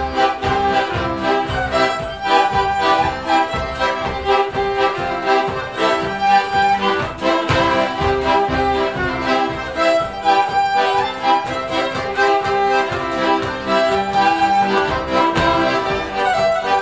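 Two fiddles and a button accordion playing a polka tune, with a steady bouncing beat under the bowed melody; the tune starts right after a brief pause.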